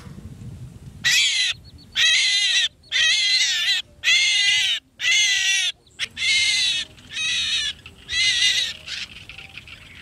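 A small captured bird held in the hand, squawking loudly and repeatedly: about eight harsh, wavering calls, roughly one a second.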